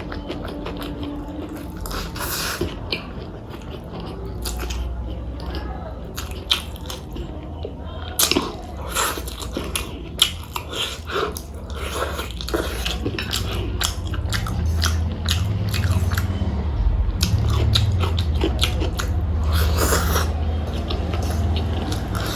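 Close-miked eating sounds: a person chewing and biting food, with many short, irregular wet clicks. A low steady hum sits underneath and gets louder about halfway through.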